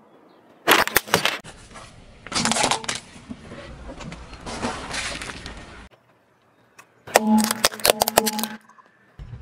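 A car tyre rolling over and crushing small plastic and soft objects: sharp cracks and snaps about a second in, a longer crunching, crackling stretch through the middle, a short pause, then a quick run of plastic cracks about seven seconds in.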